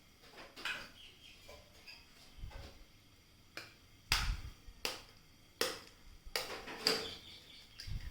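Irregular sharp taps and knocks at a mixing bowl as eggs are added to chopped onions and tomatoes, about nine in all, a few with a dull low thump, the loudest about four seconds in.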